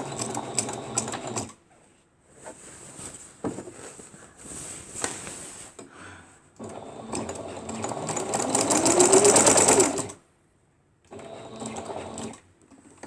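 Electric sewing machine stitching in several stop-start runs. The longest run, in the middle, rises in pitch as the machine speeds up, then cuts off sharply.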